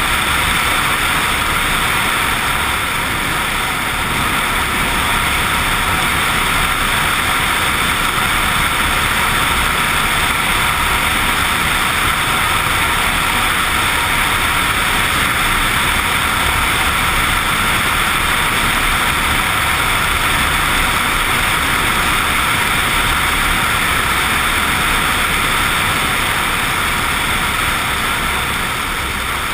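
Suzuki XF650 Freewind motorcycle under way, its single-cylinder engine running steadily beneath a loud, even rush of wind and road noise, growing a little quieter near the end.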